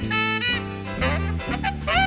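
Jazz big band playing, led by a saxophone solo with scooping, bending notes over steady bass and drums, with a cymbal stroke about once a second.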